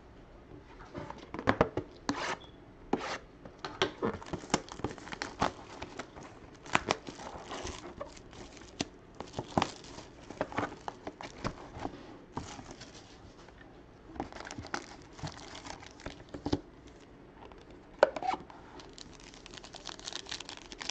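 Trading-card packaging being torn open and crinkled by hand: an irregular run of sharp crackles and rustles.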